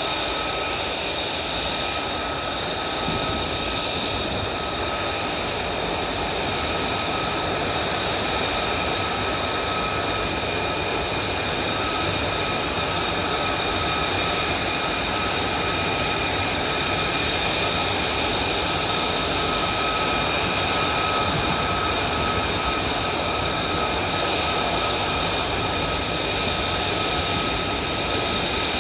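F-35 Lightning II's F135 turbofan running steadily on the ground, a constant rushing roar with a high whine held at one pitch throughout.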